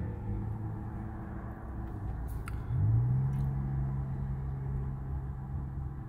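Low steady mechanical hum with rumble, stepping up slightly in pitch about three seconds in and then holding level.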